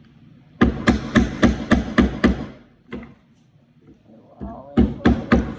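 Hammer driving nails into the wooden panel of a birdhouse kit: a quick run of about eight blows, roughly four a second, then a pause and a single tap, then another run of blows starting near the end.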